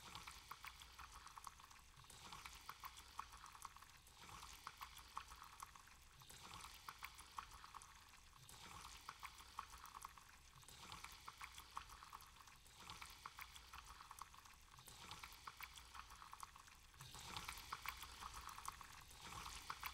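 Near silence, with faint scattered crackles and ticks that thicken a little near the end.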